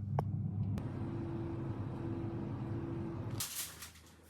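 Air fryer running with a steady hum from its fan and heater, which cuts off abruptly about three and a half seconds in.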